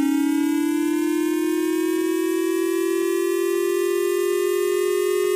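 Emergency alert siren sounding steadily and loudly. Its pitch rises slowly, with two close tones and several overtones.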